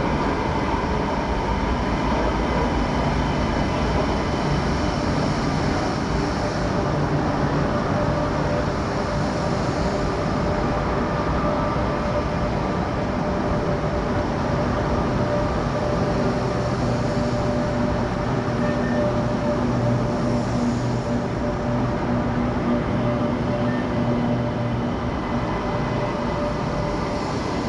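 Electric light rail train pulling into a station and running alongside the platform: a steady rumble of wheels on rail, with a few steady tones ringing over it.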